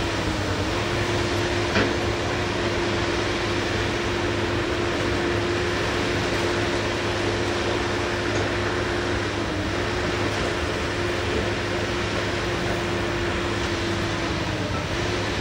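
Diesel engine and radiator cooling fan of a scrap-yard material handler running steadily, a constant drone with a hum whose pitch sags briefly three times.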